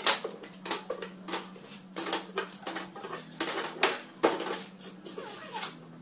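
Irregular clacks, taps and rattles as a thin HPL laminate sheet is flexed and handled over a plywood table top and thin wooden spacer strips clatter, sharpest right at the start and about four seconds in.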